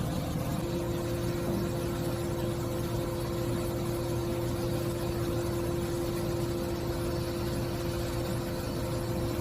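XCMG QY25K5A truck crane's diesel engine running steadily, with a steady whine joining about half a second in.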